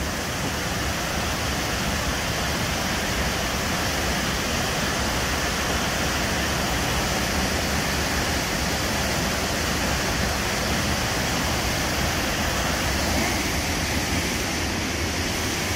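Waterfall heard from close by: falling water making a steady, even rush that does not change.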